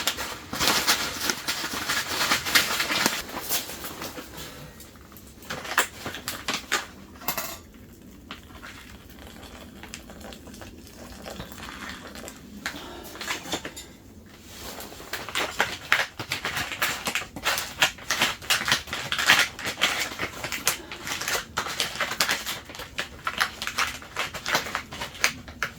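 Crinkling and rustling of a foil freeze-dried meal pouch with clicks and scrapes of a utensil, busy for the first few seconds and again through the second half, quieter in between.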